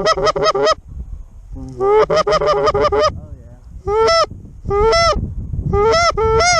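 Goose honking and clucking, loud. A quick run of clucks, a longer run a second or so later, then four single honks, each note rising then dropping in pitch.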